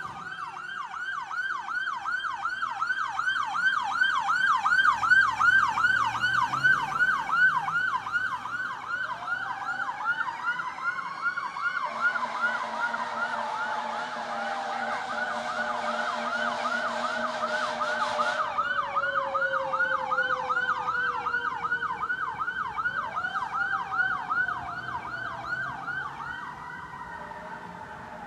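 Electronic siren on yelp, warbling rapidly throughout, layered with a Federal Q2B mechanical siren that winds up about nine seconds in, coasts slowly down in pitch, then winds up again twice near the end. Air horns blast for several seconds in the middle.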